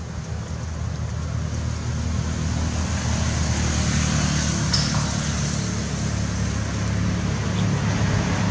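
Steady low drone of a motor, growing slowly louder, over a constant hiss.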